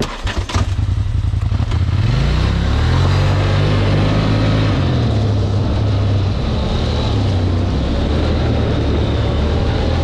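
Polaris ATV engine pulling away: a few clicks at the start, then the engine pitch rises about two seconds in, dips and rises again, and settles into a steady run.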